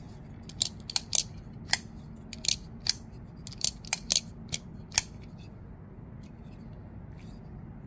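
Vosteed Morel button-lock folding knife being swung open and shut by hand: about a dozen sharp metallic clicks and snaps as the blade locks and releases, some in quick pairs, stopping about five seconds in.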